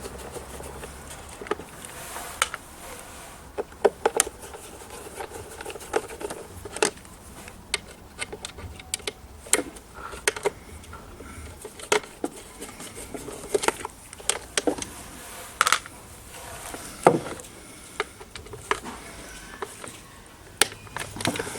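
A hand-held T20 Torx screwdriver is undoing the screws on a Kenwood Chef stand mixer's casing. There are irregular small clicks and clatters as the bit, the screws and the plastic housing are handled.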